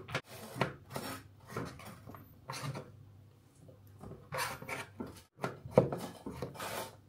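Kitchen knife slicing small gherkins on a cutting board: a run of short chops, a quieter pause of about a second around three seconds in, then another run of chops.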